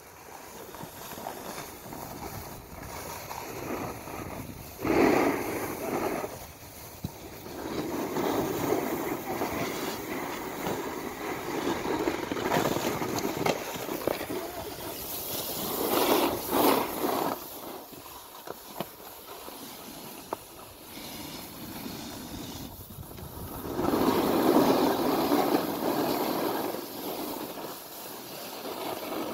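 Snowboard edges scraping and hissing over packed snow as the rider carves down the slope, the rasp swelling and fading with each turn, loudest about five, sixteen and twenty-five seconds in.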